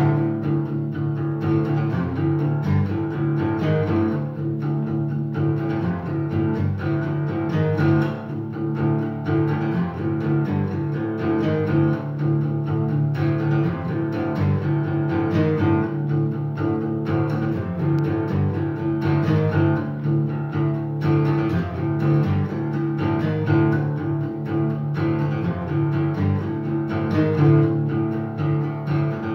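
Steel-string acoustic guitar played solo, an instrumental passage with a steady, even rhythm.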